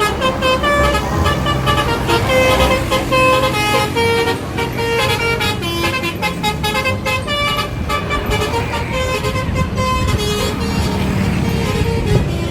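Telolet horn, a multi-tone musical vehicle horn, playing a quick melody of changing notes over the low rumble of a running engine.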